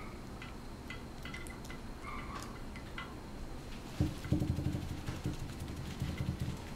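Papillon puppy at play with a hand: a few faint, short high squeaks at first, then from about four seconds in a low, rapid, pulsing play growl, louder than before.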